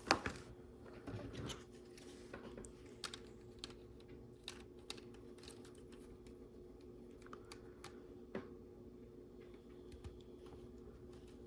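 Faint, scattered clicks and taps of plastic LEGO pieces being handled and pressed together, over a low steady hum.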